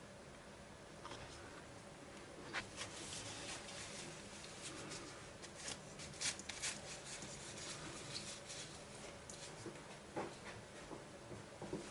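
Faint, irregular scratching and small taps of a tool spreading carbon-rubber paint over a cloth camera shutter curtain.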